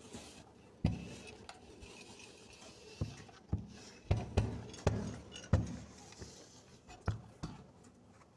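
Electric hand iron thudding and clunking down onto a padded pressing table as a sewn neckline is pressed: a string of irregular knocks, bunched closest together a few seconds in.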